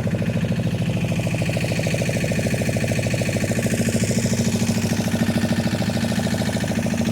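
Fishing boat's engine running steadily, with an even, fast pulsing beat.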